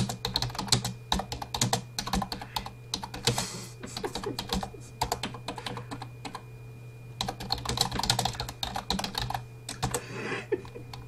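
Fast typing on a computer keyboard: quick runs of key clicks broken by short pauses of about a second near the middle.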